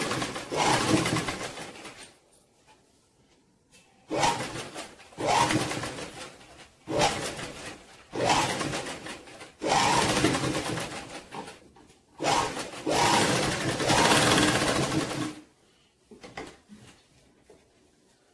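Sewing machine stitching a neckline in short runs: about seven spells of rapid needle clatter, each one to three seconds long, with brief pauses between. The longest run comes just past the middle, and the machine stops a few seconds before the end.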